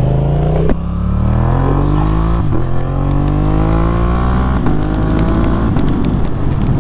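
A parallel-twin motorcycle engine accelerating through the gears, heard from on the bike. Its pitch climbs in each gear and drops back at three upshifts, about a second, two and a half seconds and four and a half seconds in.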